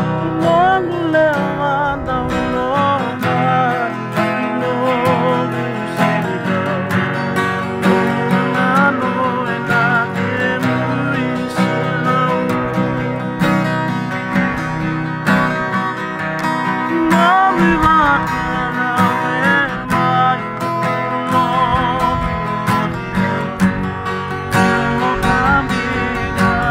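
Several acoustic guitars strummed together in a steady rhythm, with a wavering melody line over them.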